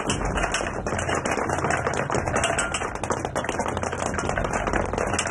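Many soldiers' boots on hard ground as a squad marches in formation: a rapid, dense clatter of overlapping footfalls.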